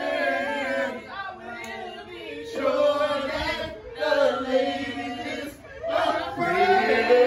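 Several voices singing together in harmony without instruments, holding long notes in phrases of one to two seconds.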